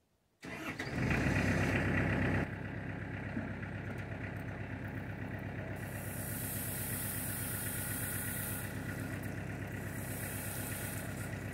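Kubota L4200 tractor's diesel engine starting up and running, louder for the first couple of seconds and then settling to a steady run with an even beat. It is run to work the backhoe's hydraulics and move a cylinder piston. A faint high hiss comes and goes twice in the second half.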